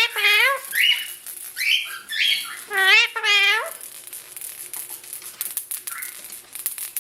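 Indian ringneck parakeet giving a string of shrill, rising-and-falling calls, several in quick pairs, with a couple of harsher squawks between them. The calls stop about halfway, leaving light clicking and rattling.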